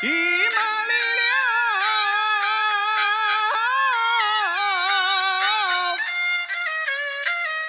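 Peking opera singing in a high voice that swoops up into its first note and holds a long wavering line over jinghu fiddle accompaniment. About six seconds in the voice stops and the jinghu plays on in shorter notes.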